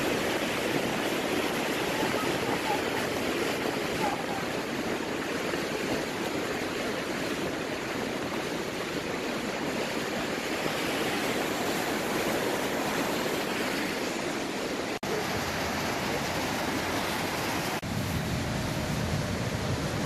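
Mountain stream rushing over rocks in a gorge: a steady rush of white water, broken by two brief dropouts near the end.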